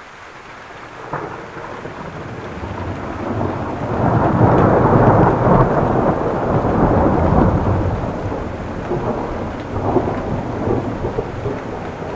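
Loud rolling thunder over steady heavy rain. The rumble builds from about a second in, is loudest in the middle, and eases back to a lower rumble with a few sharper cracks near the end.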